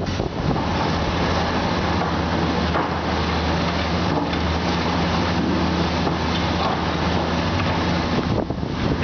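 Komatsu PC400 hydraulic excavator's diesel engine running steadily: a constant low hum under a dense, rough mechanical noise.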